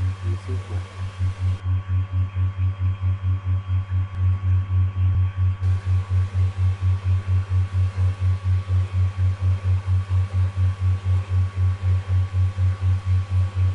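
A low hum throbbing evenly about four to five times a second, with a faint steady higher tone over it.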